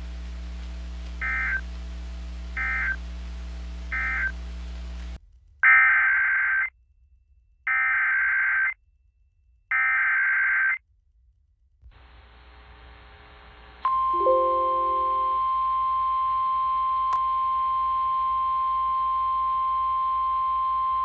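Emergency Alert System tones. First come three short end-of-message data bursts over a low hum, then three one-second bursts of warbling SAME header data about two seconds apart. About 14 seconds in, the steady 1050 Hz NOAA Weather Radio warning alarm tone starts with a brief lower beep and holds.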